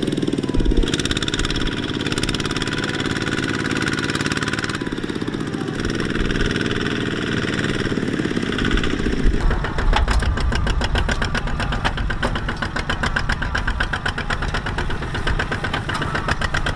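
Two-wheel walking tractor's single-cylinder diesel engine running steadily under load as it pulls a loaded trailer, with a rapid knocking chug. A little past halfway the sound changes to a harsher, more strongly pulsing chugging.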